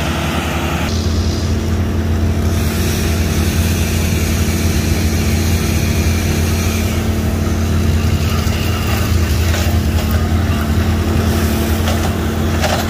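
Heavy land-clearing machinery running steadily: a low, constant engine hum with a slight change in its note about a second in.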